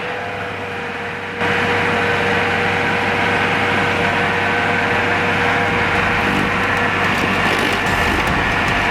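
Vermeer SC70TX stump grinder running, its cutter wheel chewing into a stump and throwing wood chips. About a second and a half in, the sound suddenly gets louder and harsher.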